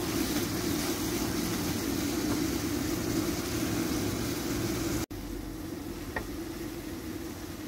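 Steady rushing of a gas burner under a wok, with the noodles and sauce sizzling in it. It drops out for an instant about five seconds in and comes back a little quieter.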